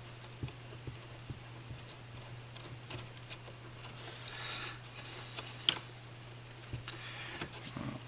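Scattered light clicks and taps of small metal parts being handled, as a steering link is fitted to an RC scale truck's axle, over a steady low hum.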